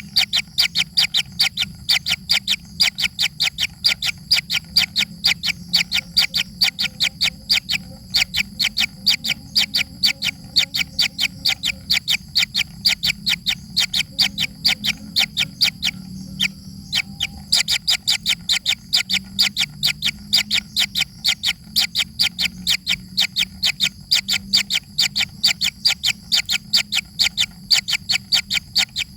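A young bird calling with rapid, evenly repeated high chirps, about five a second, typical of a chick begging for food. The calls pause briefly past the middle, over a steady low hum.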